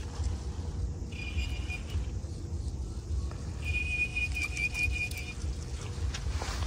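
Fly reel drag whirring as a hooked striped bass takes line, in two runs: a short one about a second in and a longer one of about a second and a half from about three and a half seconds. Beneath it runs a steady low rumble.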